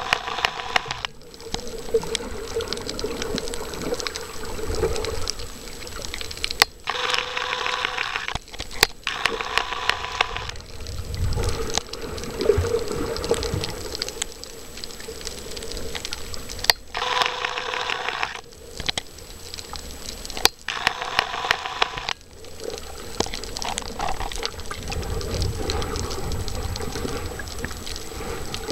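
Underwater ambience from a snorkeler's camera: a low rumble of water movement, broken by loud hissing rushes of a second or two each, mostly in pairs. These are typical of breaths drawn in and let out through a snorkel.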